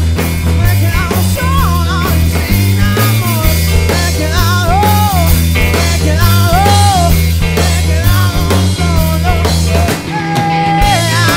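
A rock band playing live: drums, a heavy electric bass line and guitars, with a voice singing long, gliding held notes. The bass thins out about ten seconds in.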